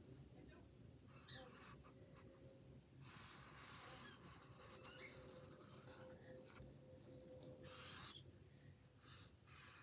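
Near silence with faint, scratchy strokes of a drawing tool on canvas: a few short bursts, with a longer stroke about three seconds in and another near eight seconds.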